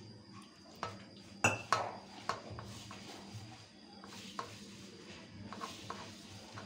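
Hands rubbing and mixing maida flour in a stainless steel bowl. The dry, rubbing hiss of the flour is broken by scattered clicks and knocks of fingers and the bowl against metal. The loudest is a sharp knock about a second and a half in.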